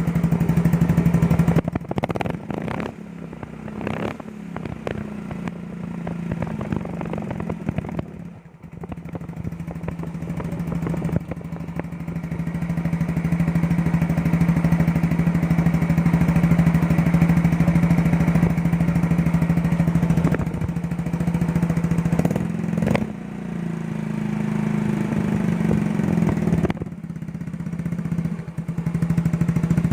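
Yamaha Mio Sporty scooter's single-cylinder engine running through an aftermarket Hero Racing Pipe exhaust, revved at varying throttle for a sound test. The exhaust note swells and drops back several times.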